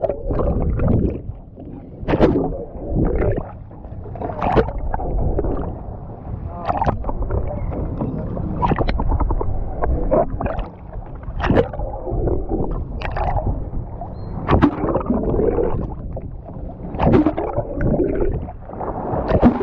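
Water sloshing and splashing around a boat at sea, with sharp splashes or knocks every second or two.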